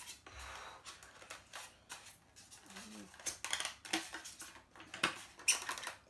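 Blue Yeti microphone being pried out of its tight polystyrene foam packing insert: foam rubbing and creaking against the microphone body, with irregular scratches and sharp clicks that grow louder near the end.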